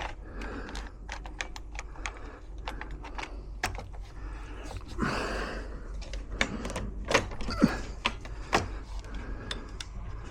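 Irregular light clicks and taps of small metal lock parts and tools being handled as a lock is worked on, with a short rush of noise about five seconds in.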